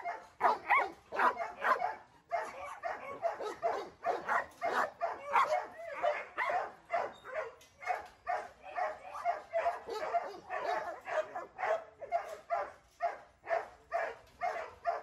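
A dog barking rapidly and without let-up, about three barks a second, with a brief pause about two seconds in.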